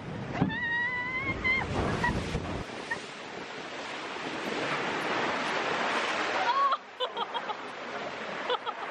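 Log flume ride: rushing water and wind buffeting the microphone as the log boat moves fast along the flume channel, the noise swelling and then dropping off suddenly about seven seconds in. Near the start there is a brief high, wavering call.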